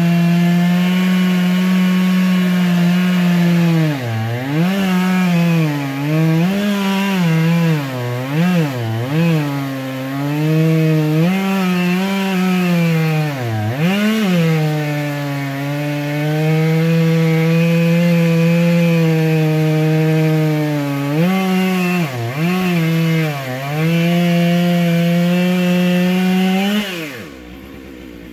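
Stihl 661 two-stroke chainsaw running at full throttle, cutting through a big oak stump. Its pitch sags again and again as the chain bogs down in the wood, then recovers. Near the end the engine drops off and stops.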